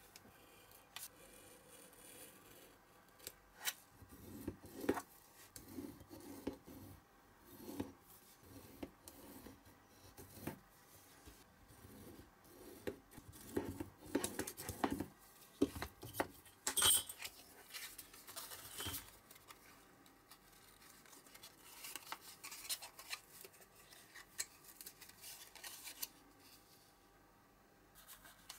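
Snap-off utility knife cutting and scoring thin printed card against a steel ruler on a cutting mat: irregular short scratchy strokes and clicks, the sharpest scrape a little past halfway, with the card rustling as it is handled.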